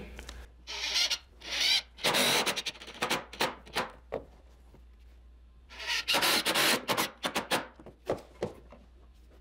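Power driver sinking long construction screws through the skirt board and rim joist into a solid wood newel post. It runs in three main bursts of one to two seconds, with the screws grinding into the wood, and ends with a few short taps as the post is drawn in a little at a time.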